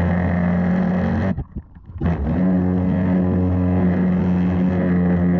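Pressure washer running with a steady hum and hiss while its turbo nozzle sprays water onto terracotta roof tiles. The sound cuts out briefly about a second and a half in, then comes back.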